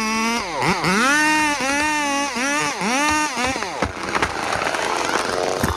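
Chainsaw engine revved up and down over and over, then running rougher and noisier, with a few sharp clicks, from a little under four seconds in.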